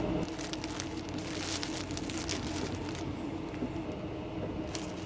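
Steady rumble of a Thai overnight sleeper train running, heard from inside the carriage. Plastic bags crinkle over the first few seconds as food is handled.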